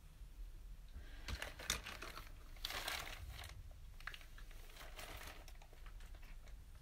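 Plastic bag wrapped around clay crinkling as it is handled and lifted off the table, in irregular rustling bursts starting about a second in.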